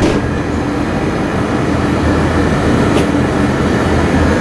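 Steady low rumble and hum of machinery, with a sharp click at the start and another about three seconds in.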